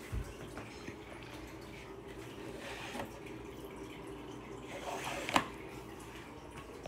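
Steady faint trickle of water from a running aquarium filter, with a short thump at the start and a sharp click about five seconds in.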